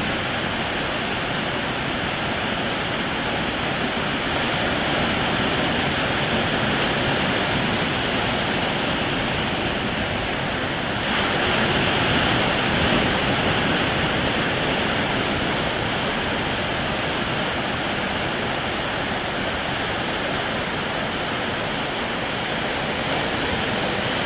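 Waves breaking at a river-mouth sandbar: a steady rush of surf that swells louder about eleven seconds in and eases a few seconds later.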